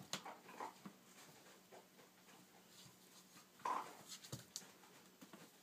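Faint rustles and light taps of a kitten playing, with a short high mew about two-thirds of the way through.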